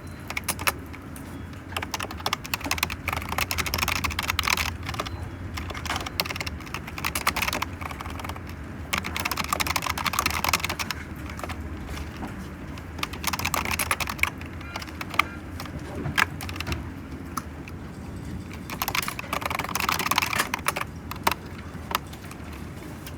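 Typing on a computer keyboard in several bursts of rapid key clicks with short pauses between them, over a steady low hum.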